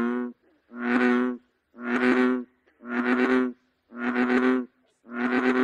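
American bullfrog calling: a series of six low, pitched calls, each about half a second long, coming about once a second.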